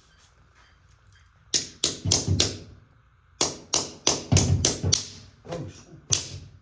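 A run of sharp knocks, struck by hand during carpet installation work: four quick ones about a second and a half in, then a faster string of about eight, and two more near the end.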